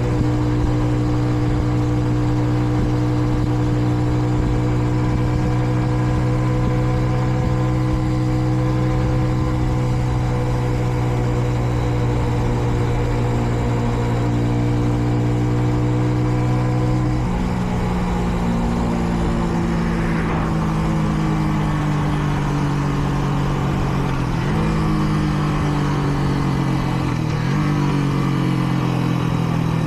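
Kreidler Dice CR 125 motorcycle's single-cylinder four-stroke engine under way, holding a steady note that drops to a lower pitch about halfway through, then dips briefly and picks up again several times as the throttle is eased and reopened. The bike is still being run in.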